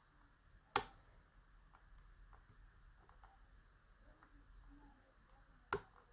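Faint metallic clicks and ticks of a pick and tension wrench working the pins inside a Paclock 90A-Pro seven-pin padlock, during a fast pick. Two sharper clicks stand out, about a second in and near the end.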